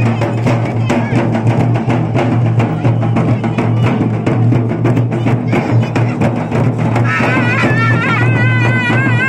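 Live drums played fast and densely, with a steady low hum beneath them. About seven seconds in, a high wavering melody joins over the drumming.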